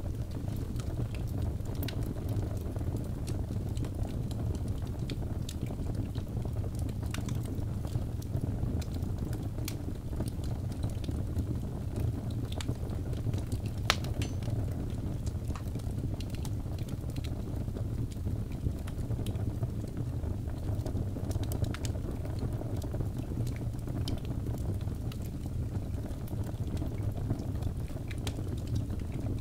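Wood fire burning in a fireplace: a steady low rumble of flames with scattered crackles and small pops, one sharper pop about halfway through.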